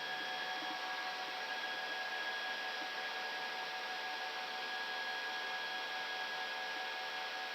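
Steady cockpit noise of an Airbus A319 climbing just after takeoff: an even hiss of airflow and engines, with a few faint steady tones running through it.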